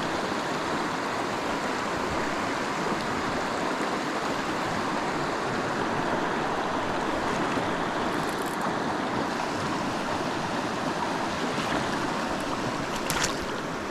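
Creek water rushing steadily over rocks, with a short sharp sound near the end.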